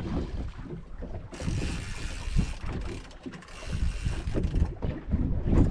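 Fishing reel cranked by hand, its gears clicking and rattling unevenly, with wind buffeting the microphone.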